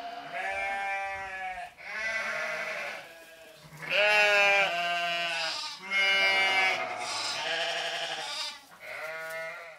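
Sheep bleating over and over, a series of about eight long, wavering bleats, roughly one a second.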